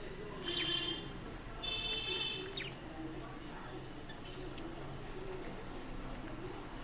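Budgie giving two short, harsh, high-pitched chirping calls, one about half a second in and a longer one around two seconds in.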